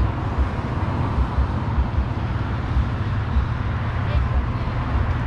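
City street ambience: steady traffic noise with people talking, over a low, uneven rumble.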